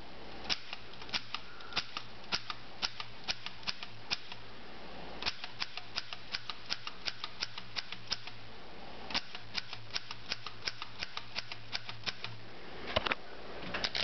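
A 1921 Corona 3 folding portable typewriter is typed on one key at a time. Each keystroke gives a single sharp clack as the typebar strikes the platen, a little over two a second. There are two short pauses, and a quicker run of clicks comes near the end.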